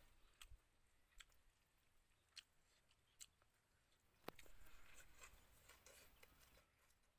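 Faint eating sounds: a metal spoon clicking against a ceramic soup bowl several times, the sharpest click about four seconds in, followed by soft chewing.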